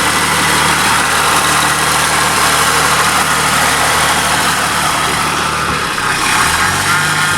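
Car engine idling steadily, with noise from the power steering pump, which is quieting down as the freshly bled system clears of air. The engine note shifts slightly about six seconds in.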